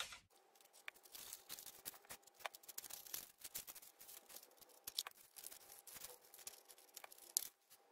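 Faint, quick run of small ticks and rustles from thin card stock being handled and pinched together while a paper gift box is assembled, played sped up.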